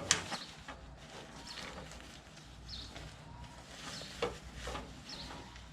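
Handling noise from a tool roll bag: two sharp clicks at the start, then faint scattered rustles and knocks as the bag is handled.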